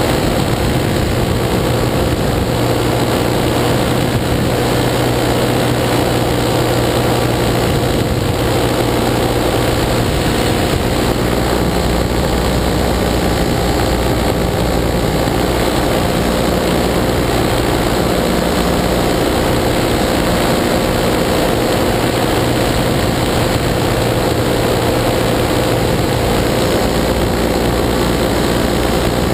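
Paramotor engine and propeller running steadily in flight, a constant drone at an even pitch.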